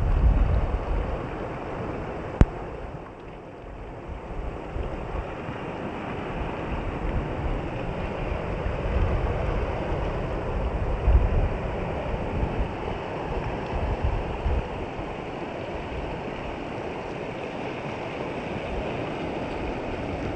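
Shallow water flowing and rippling over sand into the sea's edge, a steady wash of water noise. Wind buffets the microphone in low rumbling gusts, and there is one sharp click about two and a half seconds in.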